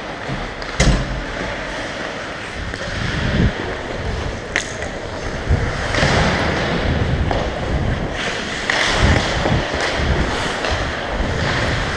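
Ice skate blades scraping and carving on the rink, picked up by a helmet-mounted camera, with wind rushing over the microphone. A few sharp clacks cut through, the loudest about a second in.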